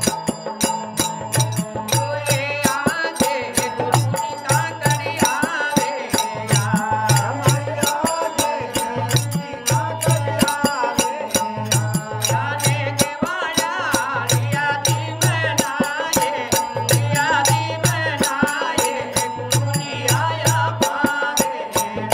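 Rajasthani folk bhajan music: a harmonium holds steady chords, a dholak beats a repeating low pattern, and manjira hand cymbals clink rapidly. A man's singing voice comes in over them about two seconds in.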